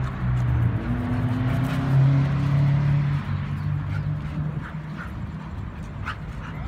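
Dogs playing rough, with low play-growling and a few short barks.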